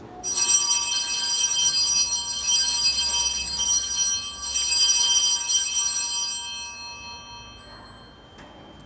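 Altar bells (Sanctus bells) rung at the elevation of the consecrated host. A bright cluster of small bells rings out, is shaken again about four seconds in, then fades away before the end.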